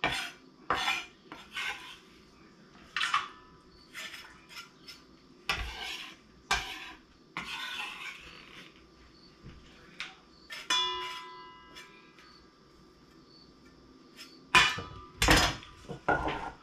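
Chef's knife knocking and scraping on a wooden cutting board as chopped garlic is gathered up, in irregular short strokes. A brief metallic ring sounds a little past the middle, and near the end a stainless steel bowl clanks as it is handled.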